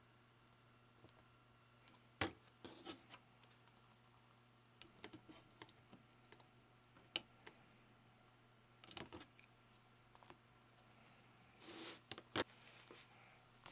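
Scattered light clicks and knocks of keyboard parts being handled during a custom keyboard build, coming in small irregular clusters over a faint steady hum.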